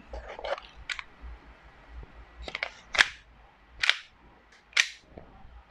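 Sharp plastic-and-metal clacks from handling a gas blowback airsoft Glock 17 replica with a silver slide: the loaded magazine is seated and the slide worked. A few light clicks come first, then three loud clacks a little under a second apart.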